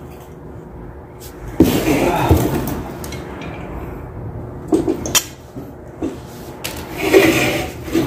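Clatter and knocks as the start relay and power lead are fitted onto a new refrigerator compressor's terminal pins. A short rushing noise starts suddenly about a second and a half in, and more knocks come near the middle and near the end.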